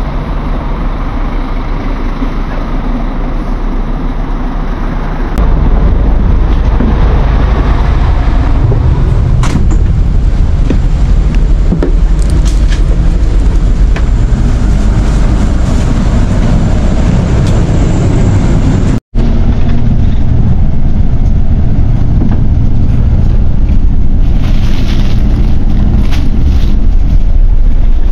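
Steady low rumble of an idling coach bus engine, getting much louder about five seconds in, with a momentary dropout about two-thirds of the way through.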